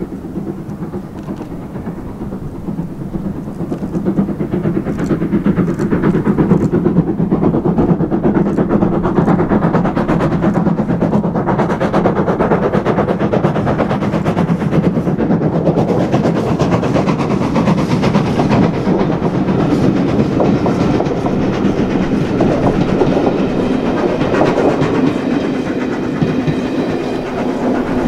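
A Caledonian Railway steam locomotive passes with its train of coaches, the wheels clattering over the rail joints. The sound builds over the first four seconds and stays loud as the coaches roll by.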